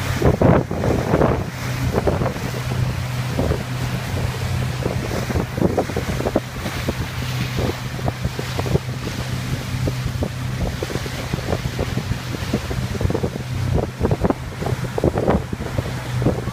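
A pontoon boat's motor running steadily under way, a low hum, with wind buffeting the microphone and water splashing against the hull in irregular slaps.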